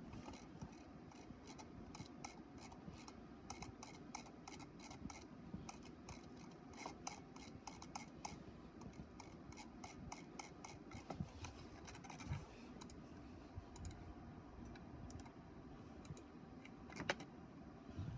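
HP all-in-one inkjet printer printing: faint rapid clicking, about four clicks a second for the first half, then sparser, with one sharper click near the end.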